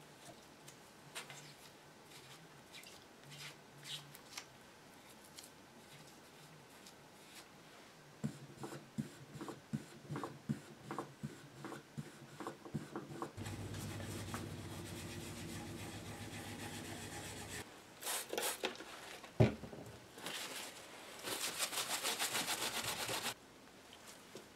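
A finishing pad rubbing over a small stained wooden panel during French polishing: faint strokes at first, then a louder, quicker rhythmic rubbing. Later come a steady hum for about four seconds, a few knocks with one sharp one, and a loud hiss of about two seconds near the end.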